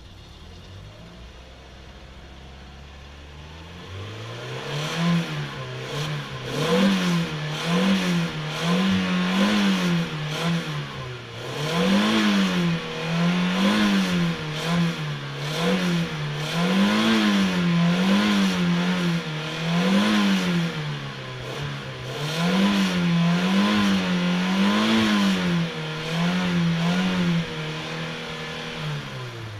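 Car engine idling low, then revved up about four seconds in and blipped up and down over and over, roughly once a second, before dropping back toward idle at the very end.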